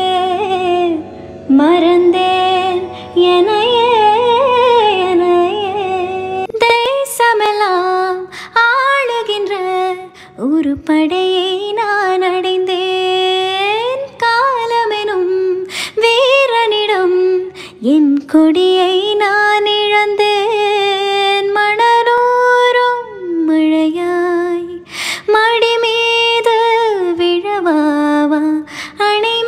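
A woman singing solo in long, gliding, ornamented phrases in Indian film-song style. About six seconds in the song breaks off and a different song begins, sung without accompaniment.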